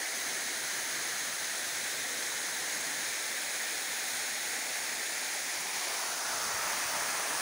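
Steady rushing of a tall, thin waterfall, about 15 to 20 metres high, pouring down a rock face onto the stones at its foot.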